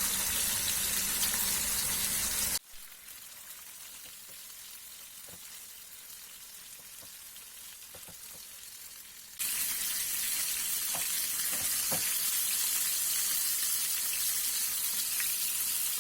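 Fish pieces shallow-frying in hot oil in a pan, a steady sizzling hiss. About two and a half seconds in it drops abruptly to a faint hiss with a few light clicks, and the full sizzle comes back suddenly about nine seconds in.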